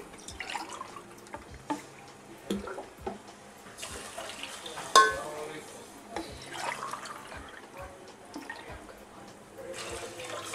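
Water poured by the glassful into a steel cooking pot of hot onion-garlic masala, splashing in a few short spells, with a spoon stirring the pot. A sharp metallic clink rings out about five seconds in.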